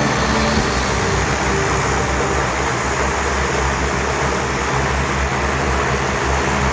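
Steady low engine hum under a constant rushing noise, typical of a vehicle on the move.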